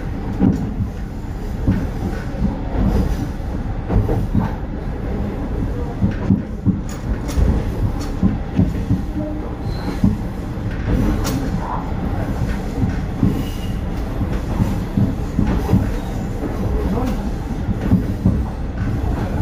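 Isumi Railway KiHa 350 diesel railcar running along the line, heard from inside: a steady low rumble of engine and running gear with irregular clicks of the wheels over rail joints. Two brief high squeals come from the wheels near the middle.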